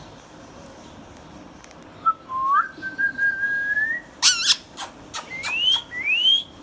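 Indian ringneck parrot whistling: a long whistle that rises slightly, starting about two seconds in, then a short, sharp squawk and a few clicks, then two quick rising whistles near the end.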